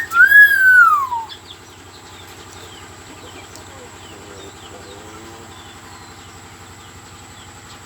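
A single loud call from a bird, an arching whistle-like note that rises slightly and then falls over about a second, just at the start. After it come faint short chirps from other birds over a low steady hum.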